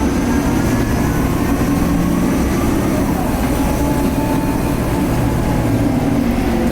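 Cabin noise of a 2010 Nova Bus LFS Articulated under way: the steady low rumble of its Cummins ISL diesel engine and drivetrain, with a faint turbocharger whine that drifts slightly in pitch.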